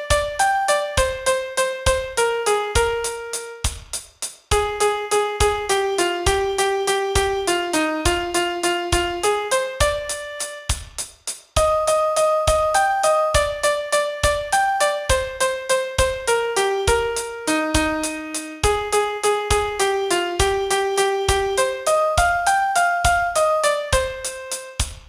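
Piano-sound melody of the song's chorus, one note line stepping up and down over a steady pulsing beat in six-eight time, with short breaks between phrases.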